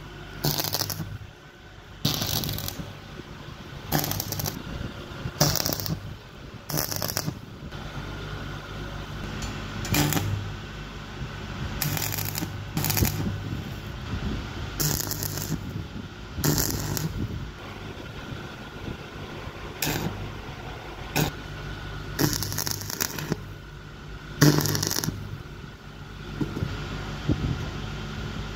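Stick (arc) welding electrode tacking steel rods to a steel frame: short crackling bursts of the arc, each under a second, coming about every one to two seconds, over a steady low hum.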